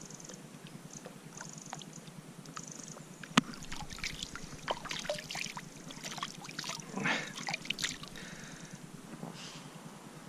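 Hands splashing and rinsing in the water beside a kayak, a run of irregular splashes and drips with the busiest burst about seven seconds in. A single sharp knock comes about three seconds in and is the loudest sound.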